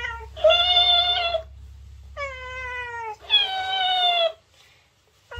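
A cat meows twice, and each meow is played back straight after by a talking, dancing cactus toy in a higher, squeakier voice: meow, echo, meow, echo.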